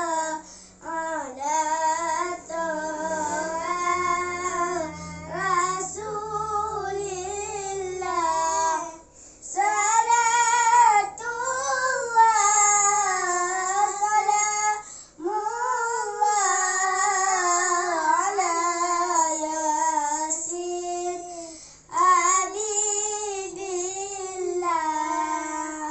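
Two young boys singing an Islamic salawat unaccompanied, a sustained melodic chant in long phrases broken by short pauses for breath.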